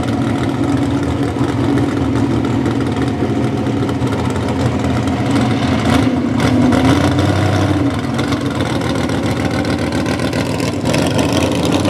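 Big-block V8 engine of a 4x4 pulling truck idling, with a brief rise in revs about seven seconds in.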